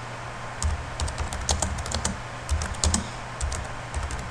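Typing on a computer keyboard: a quick, irregular run of keystrokes starting about half a second in.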